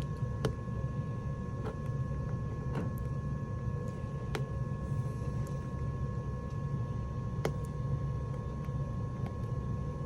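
Steady low hum with two faint steady tones above it, and a few scattered light clicks.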